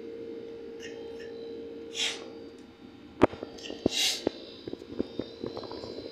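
A steady hum, with two short hissing puffs of breath about two and four seconds in. A scatter of light clicks and taps, like tableware knocking, falls in the middle.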